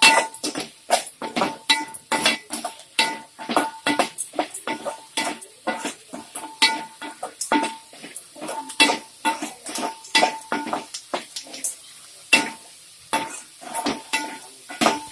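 A metal spatula scraping and clinking against a metal pan as chopped onions, green chillies and curry leaves are stirred and sautéed in oil. The strokes come fast and uneven, several a second, and many ring with a short metallic tone; they pause briefly about twelve seconds in.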